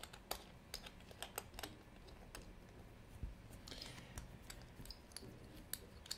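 Faint, irregular light clicks and taps of a small steel watch case being handled and turned between the fingers, with a brief soft rustle a little before the middle.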